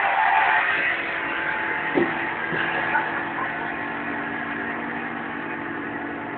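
Guitar chord ringing on after a hard strike, slowly fading. Two short knocks come about two and three seconds in.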